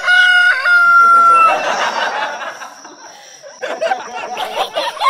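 Rooster crowing, its last note held steady until about a second and a half in. A stretch of noise follows, then quick, high, chattering voices near the end.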